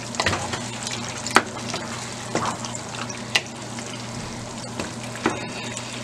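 A wooden spoon stirring thick chili in a nonstick pot over a steady sizzling hiss from the simmering pot. There are sharp knocks of the spoon against the pot about five times, roughly once a second.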